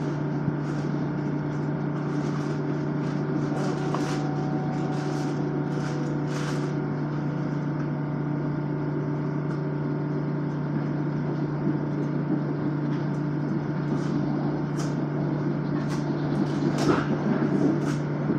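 Inside an M7 electric multiple-unit commuter train running between stations: a steady electric hum over the rumble of the wheels on the rails, with scattered clicks and squeaks. It gets a little louder with more clicks near the end.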